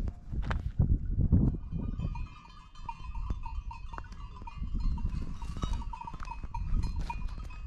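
Wind rumbling on the microphone and footsteps on loose rock. From about two seconds in, distant grazing livestock is heard faintly.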